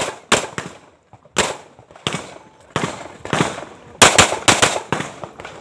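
A handgun firing a string of shots, about a dozen of them, mostly in quick pairs, with the strings tightest near the end. Each crack rings briefly.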